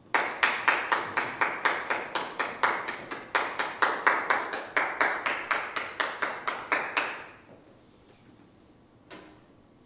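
Hand clapping from a small audience, in an even rhythm of about four claps a second, stopping about seven seconds in. A single short knock follows about nine seconds in.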